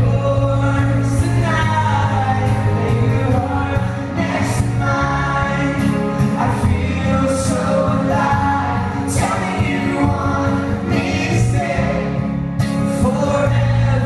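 Live pop-rock band performance heard from the audience: a man sings lead at the mic over his acoustic guitar, with a full band beneath him holding steady low bass notes.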